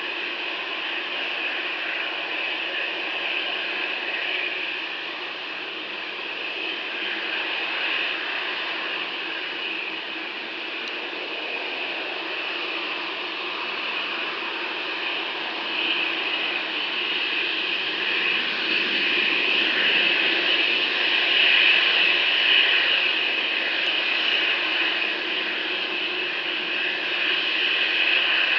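A Boeing 747's four jet engines at takeoff power as it lifts off and climbs away: a steady rushing jet noise that grows somewhat louder in the second half.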